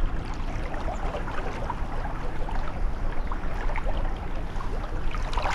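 Kayak paddling: a wooden Greenland paddle dipping and splashing, with water trickling and lapping along the hull, over a steady low rumble.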